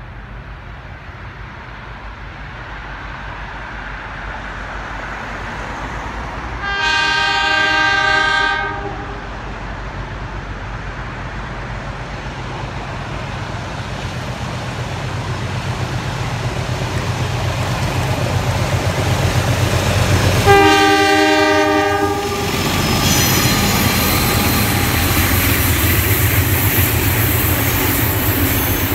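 A pair of NSW 44 class Alco diesel-electric locomotives hauling a heritage passenger train approach and pass. Their horn sounds twice, a blast of about two seconds and then a shorter one about thirteen seconds later. The diesel engine noise builds steadily, and after the second horn the rattle and clickety-clack of the carriages rolling by takes over.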